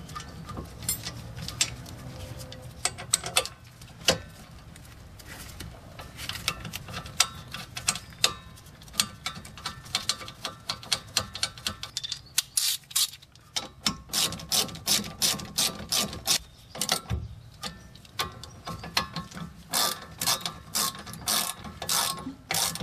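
Ratchet wrench clicking in quick runs as it drives the brake caliper bolts in. The runs of clicks come thicker and louder through the second half.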